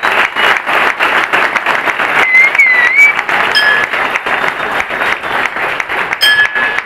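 A crowd applauding steadily, with a short whistle about two seconds in and a brief ringing tone twice, near the middle and near the end.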